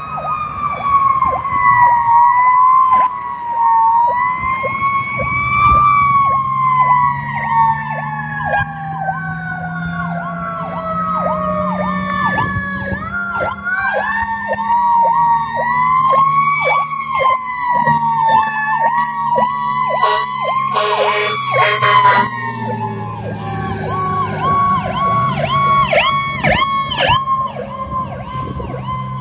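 Fire engine sirens: a Federal Q mechanical siren wails in long slow glides, falling over the first dozen seconds, winding back up to a peak about 16 seconds in, then coasting down again, with an electronic siren yelping rapidly over it. A loud blast, likely air horns, comes about 21 seconds in, over a steady diesel engine drone.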